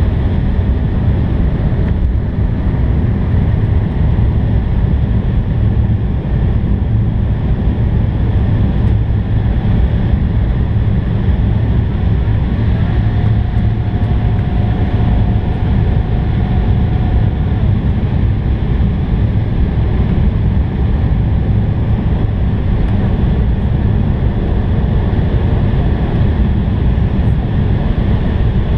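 Steady cabin noise inside an Embraer 170 airliner descending on approach: the low drone of its General Electric CF34 turbofan engines mixed with rushing airflow, heard from a window seat over the wing.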